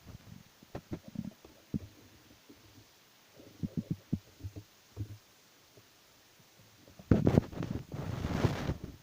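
Wind buffeting the microphone in uneven low thumps and gusts, with a strong gust rushing in about seven seconds in and lasting almost two seconds.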